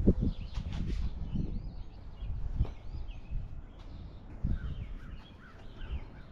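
Small birds chirping and singing in short, curving notes, over low, uneven rumbling and bumps that are loudest in the first second.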